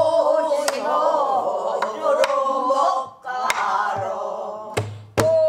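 Pansori singing, a long melismatic phrase with wavering, held notes, accompanied by about half a dozen sharp stick strokes on a buk barrel drum marking the rhythm.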